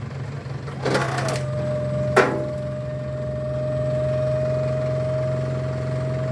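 A pickup dump truck's hydraulic pump cuts in with a clunk about a second in and runs with a steady whine while the dump bed is raised, over the engine idling. A single sharp clack sounds about two seconds in.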